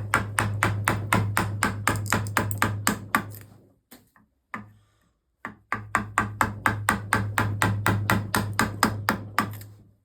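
A chisel being driven into a spruce leg with quick, even mallet taps, about five a second, in two runs of about four seconds with a short pause between.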